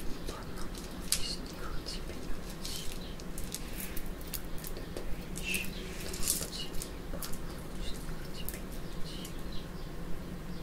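A broom sweeping outside the window, irregular short swishing strokes about one a second, with short bird chirps in between.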